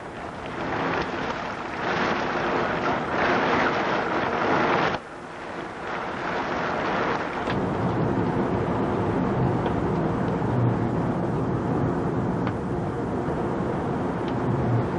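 Extreme storm winds and rain roaring outside, heard from indoors behind a window on a VHS camcorder. The noise swells in gusts, cuts off abruptly about five seconds in, then returns as a steadier, lower roar.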